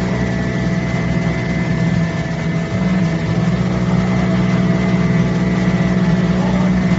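Multi-ply fabric CNC cutting machine running, its knife head cutting through a stack of fabric layers held under plastic film: a steady, loud mechanical hum with a few constant higher tones, the low hum dipping briefly about three seconds in.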